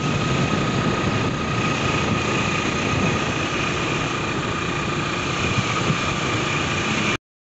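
Steady engine and wind noise from riding a motorized two-wheeler along a road, with a thin steady whine over it. The sound cuts off suddenly near the end.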